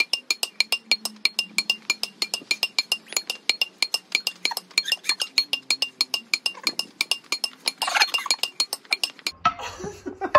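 A tennis ball volleyed back and forth between two frying pans: a fast, even run of metallic clinks, about five a second, each with a short ring. Near the end the clinks stop and voices break in.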